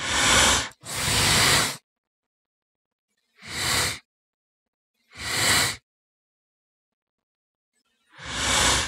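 Dinosaur sound effects for a Utahraptor: five short breathy hisses, each under a second. The first two come back to back, and the rest are spaced by silence.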